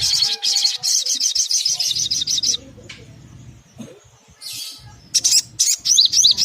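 Little spiderhunter (sogok ontong) calling: a fast trill of sharp, high repeated notes for about two and a half seconds, then after a pause a burst of sharp chips and a quick run of up-and-down whistled notes near the end.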